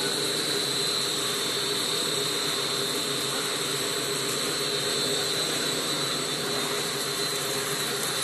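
Industrial hot air circulation tunnel oven running: a steady whir of its blowers, with a constant high whine over it.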